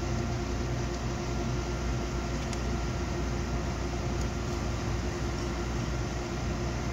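Steady hum and hiss from a freshly repaired Stetsom HL 1200.4 car amplifier sitting powered up and idling with its cooling fan running, no signal yet playing through it.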